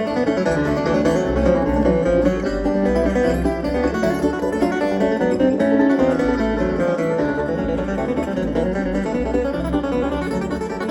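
Acoustic bluegrass band playing an instrumental break between verses: quick picked banjo and guitar over a steady bass line.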